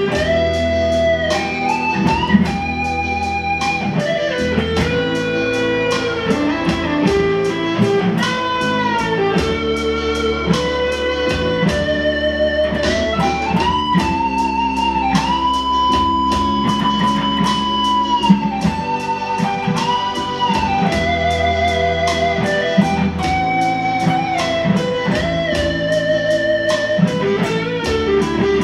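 Tagima Stratocaster-style electric guitar playing a lead line of sustained, bent notes with vibrato, with one long held high note about halfway through.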